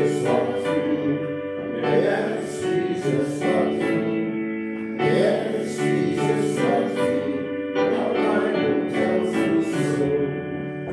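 Congregation singing the gospel acclamation, several voices together in sustained notes with keyboard accompaniment, the sung response that leads into the Gospel reading.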